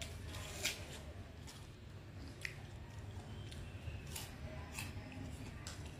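A person biting and chewing crisp green wax apple (mận), with several short, sharp crunches spread through the seconds.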